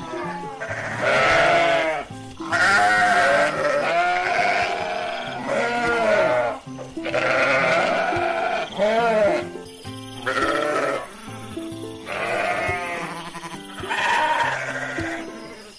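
Sheep bleating repeatedly, each call wavering and about a second long, over background music.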